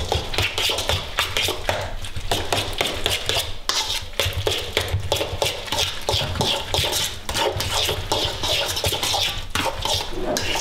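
A fork scraping and clinking against a stainless steel mixing bowl in rapid, continuous strokes as cottage cheese and cream cheese are mashed together.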